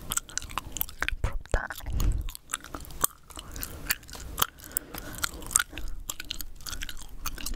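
Chewing gum close up at the microphone: irregular wet smacks and clicks of the mouth.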